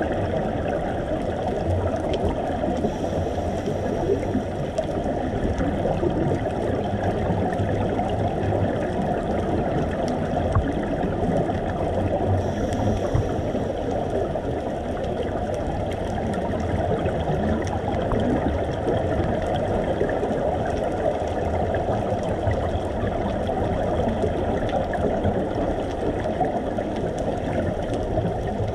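Steady, muffled underwater rushing noise picked up through a camera's waterproof housing, with a faint hiss a few times.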